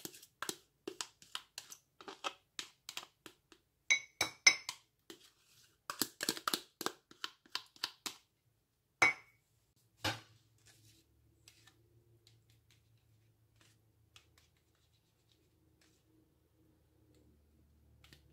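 Metal spoon scraping and knocking against a ceramic bowl and mug while thick Greek yogurt is spooned out: rapid small clicks and scrapes, with a couple of ringing clinks about four seconds in. The knocking stops about ten seconds in.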